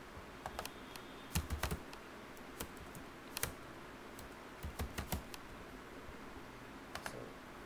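Computer keyboard being typed on: sharp key clicks in short, irregular bursts with pauses between them.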